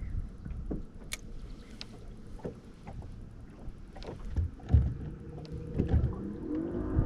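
Irregular knocks and thumps against a low rumble, as of gear and footsteps in a small fishing boat on the water. A steady hum with several pitches rises in near the end.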